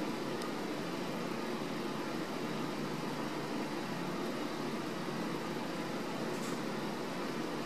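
A steady, even hiss-like background noise with no distinct events.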